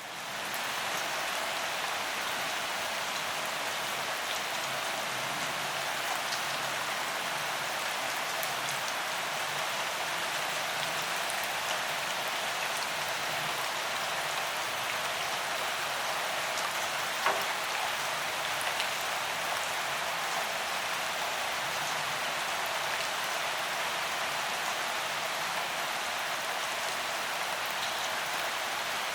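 Steady rain falling: an even, dense hiss with scattered sharper drop ticks, fading in over the first second. One louder drop strikes about 17 seconds in.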